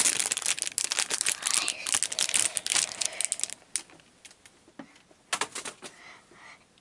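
Plastic blind bag crinkling and tearing as it is opened by hand: dense crackling for about three and a half seconds, then only a few scattered rustles.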